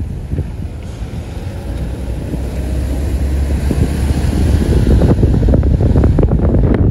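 Wind buffeting the microphone out of a moving car's open window over low road rumble, growing louder and more blustery from about four seconds in.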